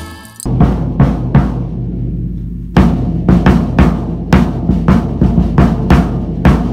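A drum kit playing a groove: kick drum thuds, snare hits and cymbals in a steady rhythm. It starts abruptly about half a second in, where a sung song cuts off.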